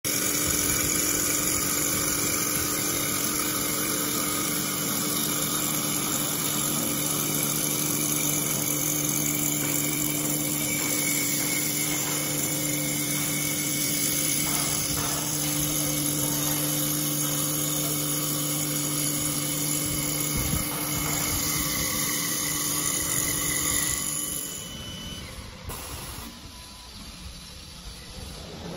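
L1530A CNC wood lathe cutting a turning wooden blank with its rotating multi-blade milling cutter head: steady machine whine with a dense cutting hiss and a few held tones. About 24 seconds in the sound drops and goes on much quieter.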